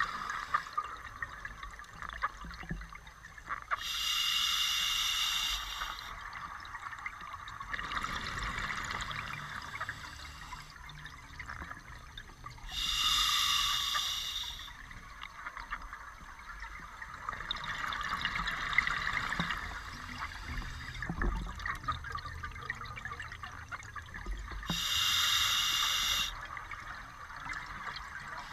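A scuba diver breathing underwater through a regulator, with bubbles gurgling. Three louder breaths come about every ten seconds, with softer breaths in between.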